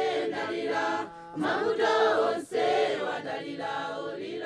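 A group of voices singing a chant-like song together, with short breaks between phrases.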